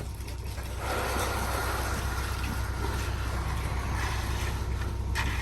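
Hand tools scraping and pushing through wet concrete, a rough continuous scraping that starts about a second in, over the steady low drone of a running engine.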